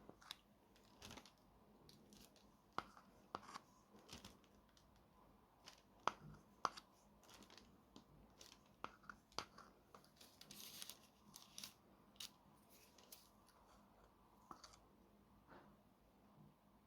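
Faint, scattered small clicks and brief scraping or rustling of objects being handled on a work table, with a longer rustle about ten seconds in.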